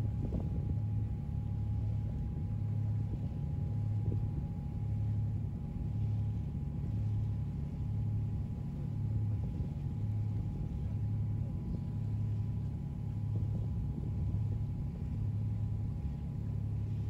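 Low engine drone throbbing steadily, swelling and fading about once a second, with a faint steady whine above it.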